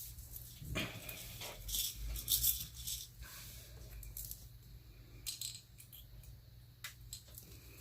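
Vinyl-coated fabric rustling and crinkling in short irregular bursts as it is handled, folded and pinned for a hem, over a steady low hum.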